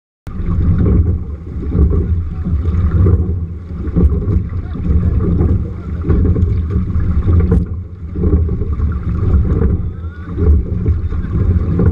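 A rowing shell underway: water rushing and splashing along the hull and oars as the sculler rows, under heavy wind buffeting on the deck-mounted microphone. It swells and eases every second or two, with a few light knocks, and starts abruptly.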